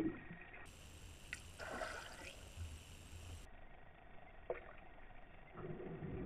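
Faint, muffled underwater water noise picked up by a camera beneath the surface, with a few small sharp clicks and a soft low hum near the end.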